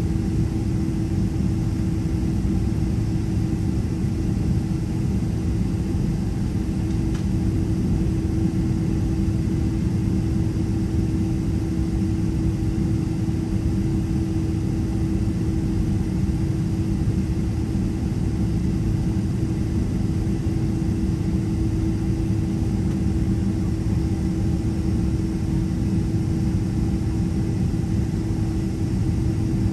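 Steady cabin noise of a Boeing 767-300ER on the ground with its turbofan engines at idle: a low rumble with a steady hum.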